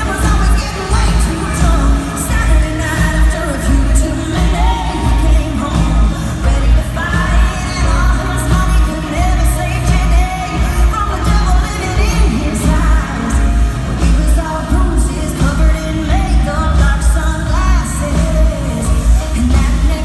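Live country song performance: a woman singing lead over a full band with electric guitar and a heavy, pulsing bass and drum beat, heard through a large arena's sound system.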